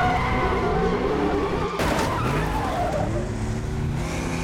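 Car chase sound effects: a car engine revving up and down hard, with tires squealing in the first second or so. There is a sudden burst of noise about two seconds in.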